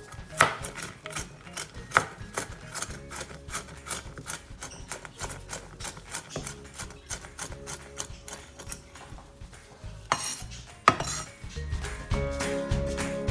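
A kitchen utensil working in a mixing bowl: quick repeated clinks and scrapes, a few stronger knocks against the bowl, with soft background music that swells near the end.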